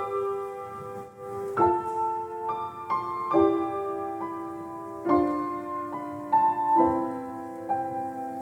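Solo piano playing slow, sustained chords, a new chord struck about every second and a half to two seconds with a few single notes between: the quiet introduction to a church choir anthem.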